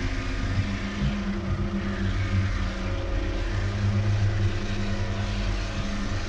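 Handheld rotary grinder with a small cutting disc running and cutting into concrete: a steady grinding whine over a low motor hum.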